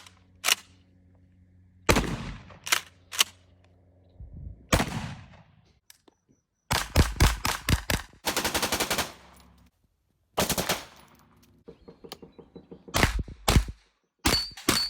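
Thompson submachine gun (Tommy gun) firing: a few single shots first, then fast full-auto bursts in the middle, then more short bursts near the end.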